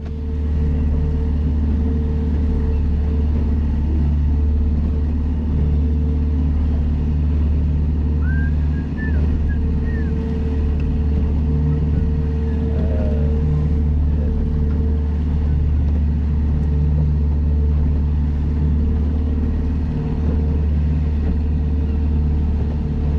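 Fishing boat's engine running steadily underway, a constant low hum.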